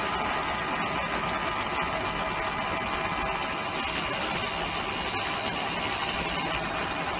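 A 200 W pulsed fiber laser cleaning machine at work, a steady hum and hiss with a few faint high tones while the beam scans across the part.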